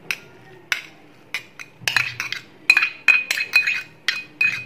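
Metal spoon scraping and knocking against a stainless-steel bowl as grated raw mango is pushed out of it: a string of irregular clinks, the ones in the second half ringing brightly.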